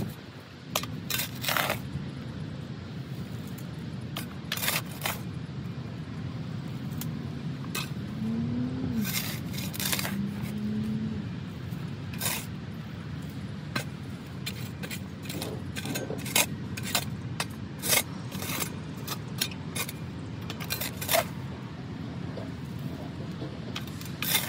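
Long-handled shovel digging into dry soil, its blade scraping and clinking in many sharp, irregular strokes.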